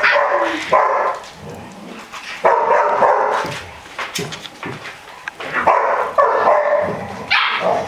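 Seven-week-old Barbet puppies barking in rough play, in several short bursts with brief pauses between.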